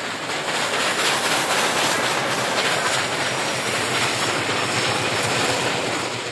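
A train running past: steady rushing wheel-on-rail noise, beginning to fade away at the very end.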